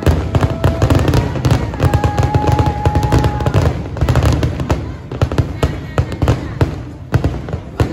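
Aerial fireworks display: a dense barrage of crackling bangs and booms that thins out to scattered cracks in the second half.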